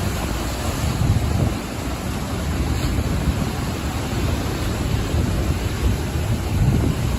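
Ocean waves breaking and washing onto the shore: a steady rush of surf with a low rumble underneath.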